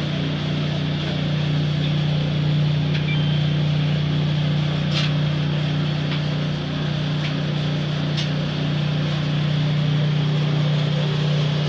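Maytag Maxima dryer running with a loud, steady low hum and drone from its vibrating blower wheel, the vibration caused by a crack in the wheel's helicoil housing. A few light ticks sound over it.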